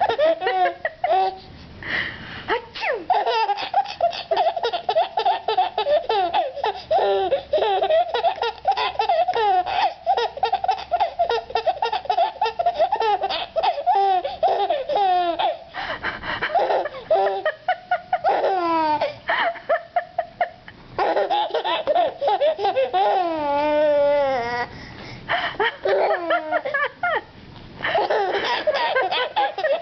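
Baby laughing hard in long runs of quick, high-pitched belly laughs, with a drawn-out squeal falling in pitch about two-thirds of the way through.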